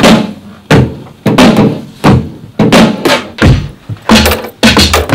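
Drum samples finger-played on the pads of an MPC sampler: a beat of kick-, tom- and rim-like hits about two a second, each with a short ringing tail, coming closer together near the end.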